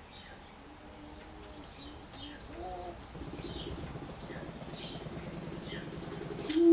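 Male greater prairie chickens booming on a display ground. Faint low hollow moans come in the first couple of seconds, then a low, rapid rattling from about three seconds in, and a loud boom starts right at the end. Thin high chirps from other birds are scattered throughout.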